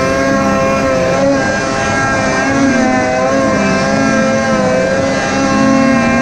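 Polaris Matryx RMK 850 snowmobile's two-stroke twin engine running at high revs under load as the sled climbs through deep powder. Its pitch dips and rises a little with the throttle.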